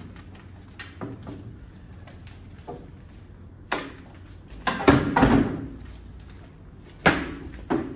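Knocks and bangs on a classroom table: a sharp knock a little before halfway, a louder cluster of knocks and thumps just after it, and two more sharp knocks near the end.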